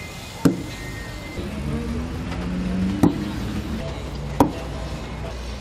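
A ball struck by flat wooden paddles (tablas) in a rally, three sharp smacks about a second and a half to two and a half seconds apart. A steady low rumble of road traffic runs underneath.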